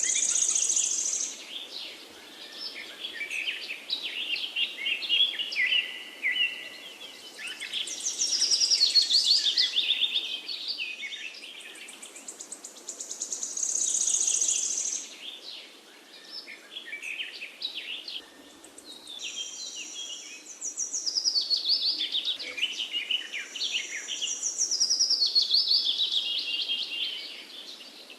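Songbirds singing: a run of quick, high chirping and trilling phrases a few seconds long, each followed by a short lull and then repeated.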